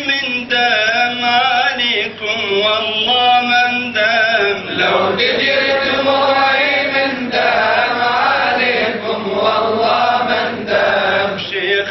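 Unaccompanied male chanting of a Sufi qasida: a melismatic melody with ornamented, wavering held notes.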